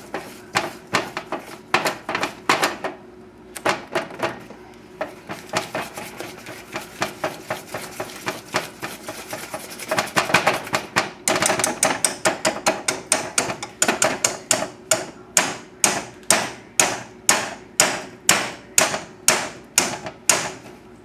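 Wire whisk beating melted chocolate into an egg-yolk mixture in a stainless steel saucepan, clicking against the pan in quick strokes. The strokes are uneven at first and settle about halfway into a steady beat of about two and a half a second.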